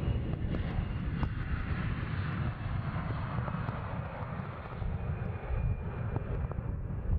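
Boeing 777-300ER jet on landing approach with its GE90 engines at low thrust: a steady jet rumble and hiss, the hiss brightening a little in the middle as the plane passes closest.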